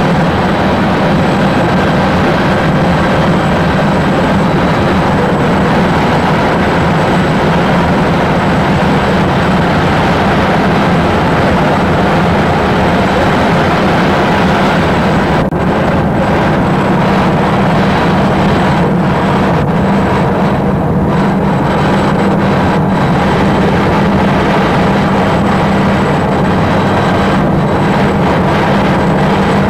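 Helicopter in level flight heard from inside the cabin: a loud, steady drone of engine and rotor noise with a faint thin high whine, unchanging throughout.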